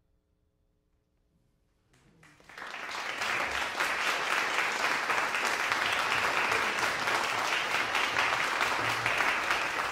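Near silence, then audience applause breaks out about two seconds in, swells within a second and keeps going steadily.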